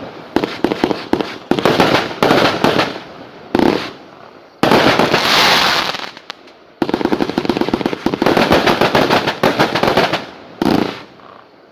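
Lesli Voodoo Queen firework going off: runs of rapid crackling, a longer loud hissing spell about five seconds in, and a low thump near the end.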